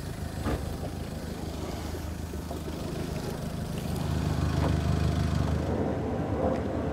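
Boat's outboard motor idling steadily on a cold start as it warms up, with a few light knocks over it.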